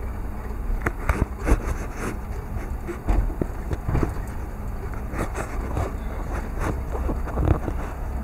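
Inside a car driving slowly over a rough dirt track: a steady low rumble of engine and tyres, broken by irregular knocks and rattles as the car jolts over the bumps.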